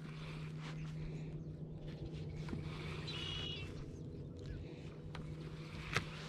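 Quiet lake ambience: a steady low hum, a short bird call about three seconds in, and a single sharp click near the end.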